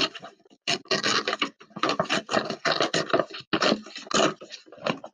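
Brown paper grocery bag being torn by hand down its side, in a run of irregular ripping and crinkling noises.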